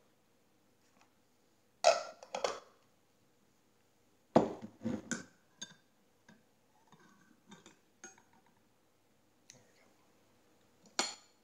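A metal spoon knocking and scraping against a glass jar of strawberry preserves and a plate, in sharp clinks: two about two seconds in, a cluster around the middle, and one more near the end.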